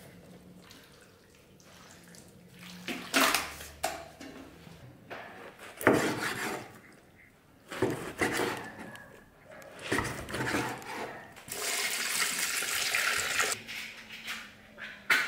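A large kitchen knife chops raw meat on a wooden cutting board, and pieces are scraped off into an aluminium pot, heard as a few separate knocks and scrapes. About twelve seconds in, water runs into the pot for about two seconds.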